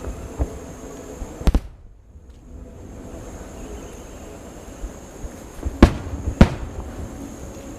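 Fireworks exploding: a few sharp bangs, with a quick double bang about a second and a half in and the two loudest bangs about six seconds in. The sound briefly drops almost to nothing around two seconds in.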